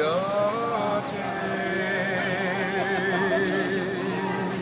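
A man singing solo, gliding up into a note at the start and then holding long notes with a wide vibrato.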